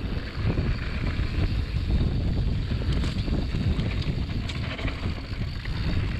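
Wind buffeting the action camera's microphone and a mountain bike's tyres rolling fast over a dirt woodland trail, a steady rumble with a few sharp knocks from the bike, one about halfway through and another a second and a half later.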